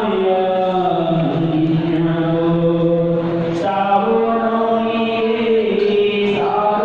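A man singing solo into a handheld microphone, a slow melody of long held notes that step up and down in pitch.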